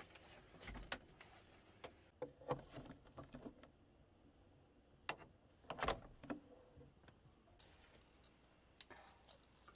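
Faint, scattered knocks and clinks of a wooden tabletop and metal pipe leg being handled and set in place.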